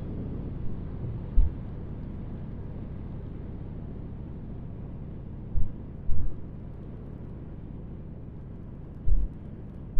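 Wind rush on an action camera's microphone during a motorcycle ride at speed, with a steady low rumble and a few sudden low thumps of wind buffeting, about four in all.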